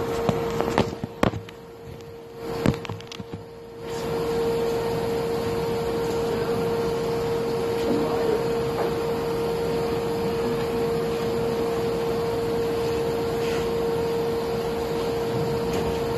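Pro Spot pulsed MIG welder arc running in double pulse mode: a steady frying buzz with a constant mid-pitched hum. It stops briefly about a second in, with a few sharp clicks, then restarts about four seconds in and runs unbroken.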